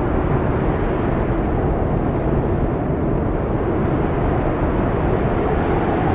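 Strong wind howling over high mountains: a steady rush of noise with faint howling tones that waver slowly in pitch.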